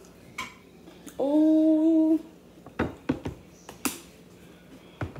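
A person hums a long 'mmm' of enjoyment over food for about a second, starting about a second in, followed by a few short, sharp mouth smacks and clicks.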